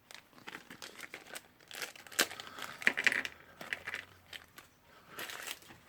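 Irregular crinkling and rustling of packaging with sharp little clicks, as new carbon brushes and their holders for a Bosch rotary hammer are unwrapped and handled.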